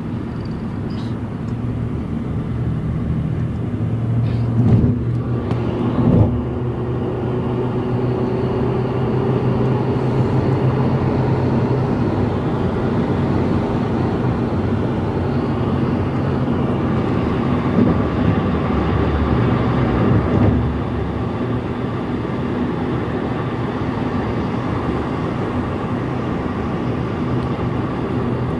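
Steady drone of a car's engine and road noise heard inside the cabin, with a few short louder sounds about five, six, eighteen and twenty seconds in.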